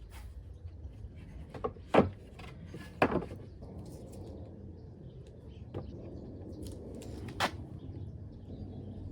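Pallet-wood boards being handled and set in place, with three sharp wooden knocks about two, three and seven seconds in and a few lighter clicks between them.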